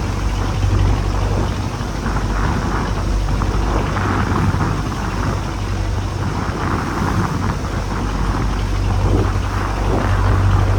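Rough sea and wind buffeting the microphone in a storm, rising and falling in gusts, over a steady low rumble.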